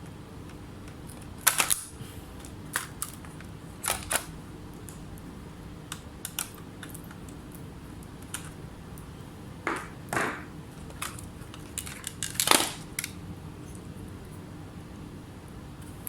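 Irregular sharp clicks and light clacks of small hard parts and tools being handled on a laptop under repair, the loudest about three quarters of the way through, over a faint steady hum.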